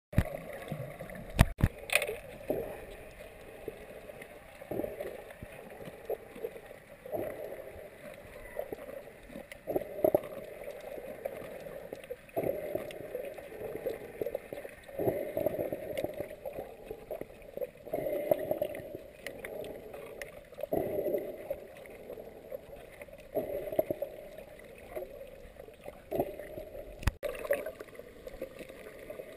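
Muffled underwater sound picked up by a camera in a waterproof housing: irregular surges and swishes of moving water every second or two, with a few sharp clicks or knocks near the start and near the end.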